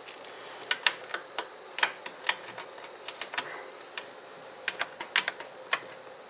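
Irregular series of light plastic clicks and taps from a drive's cable connector being handled and plugged into a motherboard inside a PC case, with a faint steady hum underneath.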